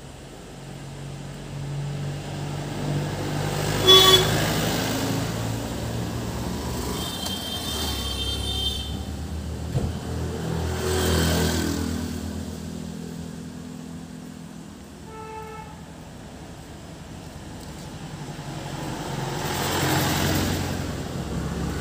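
Road traffic: vehicles driving past with a steady engine rumble, swelling as they pass twice, with short horn toots, one sharp and loud about four seconds in and another brief one past the middle.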